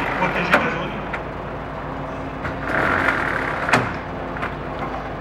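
Roller shutters on a fire rescue truck's rear and side equipment lockers being rolled up: a rattling slide around three seconds in and sharp knocks about half a second, one second and nearly four seconds in. The truck's engine idles steadily underneath.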